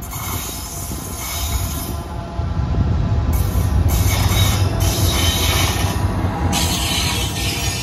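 A pair of GE WDG6G diesel freight locomotives hauling a goods train through at speed: a heavy low engine and wheel rumble, with bright high wheel-on-rail squeal and hiss that comes and goes as the train passes close on the curve.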